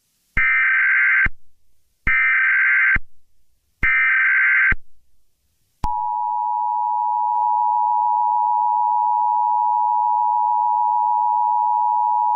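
Emergency Alert System activation tones: three short bursts of digital SAME header data chirps, each about a second long with short gaps between, then from about six seconds in the steady two-tone EAS attention signal.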